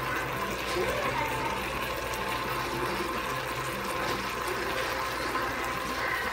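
Ground beef sizzling as it browns in a pot, a steady frying hiss with a low hum underneath.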